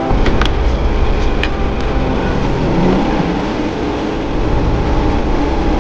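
Steady low roar of the burners under the woks, with a few light clicks and clinks of a metal ladle in a seasoning tray near the start.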